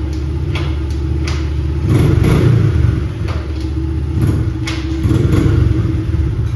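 A 2008 Honda CRF70's small single-cylinder four-stroke engine runs and revs up twice, with light clicking over the top. It is running and shifting again after its broken primary gear and shift drum stopper were replaced.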